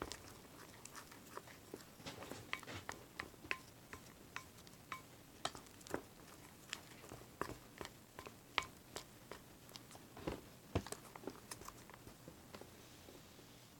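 Fluffy shaving-cream slime being stirred and mixed: faint, irregular sticky clicks and small pops, a few a second.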